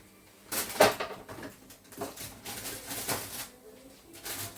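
A few sharp knocks and clinks of kitchen things being handled and set down, the loudest about a second in.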